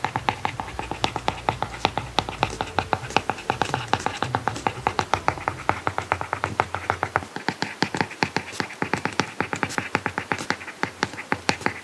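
Soft background music with a quick, steady clicking beat; its bass drops away about halfway through.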